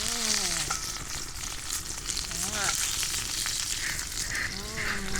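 Pork fat (salo) frying in a skillet over an open fire, a steady crackling sizzle. A few brief voice-like sounds come over it near the start, about halfway and near the end.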